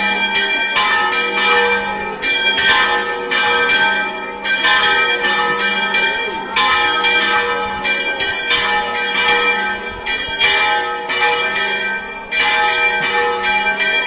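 Church bells rung in a rapid festive peal: metal strikes in quick succession, each ringing on into the next, as rung when a procession leaves the church.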